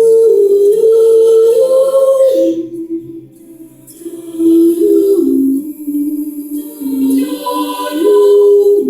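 A junior high school chorus singing a cappella: held notes that step up and down in pitch, fading briefly about three seconds in before the voices swell back.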